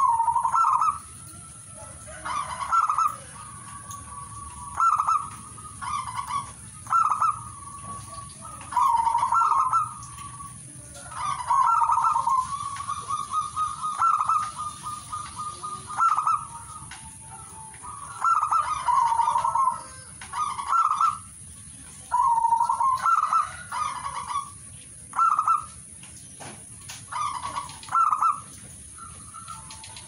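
Zebra dove (perkutut) cooing: short bursts of rapid staccato coos repeated every second or two, a few running on into longer rolling trills.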